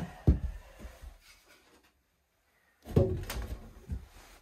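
Short knocks and clunks of hand tools and parts being handled at a snowmobile's chain case. There is one knock just after the start, then a second cluster of clunks about three seconds in, with a sharp clink among them.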